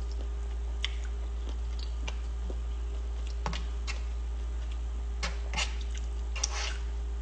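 Mouth noises of someone eating close to a phone microphone: short, irregular wet clicks and smacks of chewing, over a steady low electrical hum.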